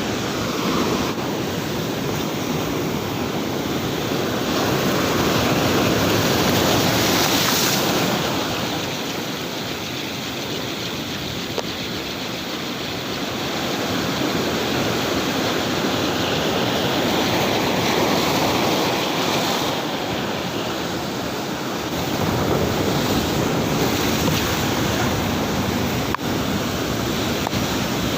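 Heavy, rough surf breaking on the shore, a dense rushing noise that rises and falls in long swells, with wind on the microphone.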